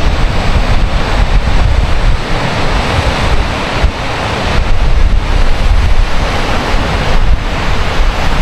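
Strong wind buffeting the microphone in uneven gusts, over the steady wash of ocean surf breaking against the sea cliffs below.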